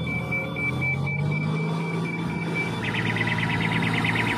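Tractor engine running as the tractor wades through floodwater, with a steady electronic beeping over it that changes to a faster warbling beep about three seconds in.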